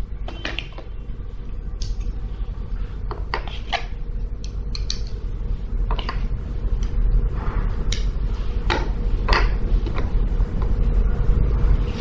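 Small plastic LED tea-light candles being set down one after another on a wooden table: a scattered series of light knocks and taps over a low steady hum.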